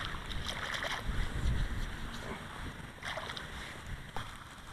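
Outdoor wind rumbling on the microphone, with a few brief rustles and light clicks.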